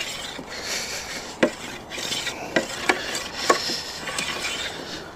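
Wood scraping and rubbing against wood in short, uneven strokes, broken by four or five sharp knocks of timber on timber.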